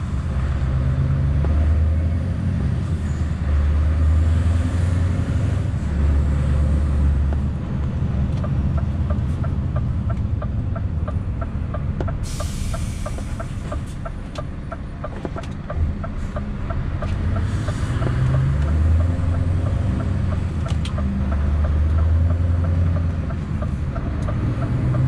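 Scania S650's 16-litre V8 diesel engine running under way, heard from inside the cab, its revs rising and falling in steps through the gear changes. Around the middle it drops back, with a short hiss and a steady ticking for several seconds, then picks up again.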